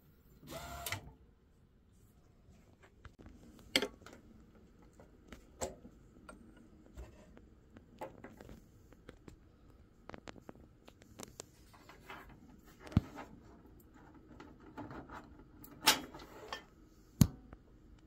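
Scattered clicks and knocks of hands handling an A3 DTF printer (a converted Epson printer), with a brief burst of mechanism noise about half a second in.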